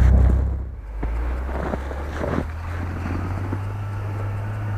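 A 4x4's engine working hard in snow. Under a second in it drops to a steady low engine drone with scattered knocks and some wind on the microphone.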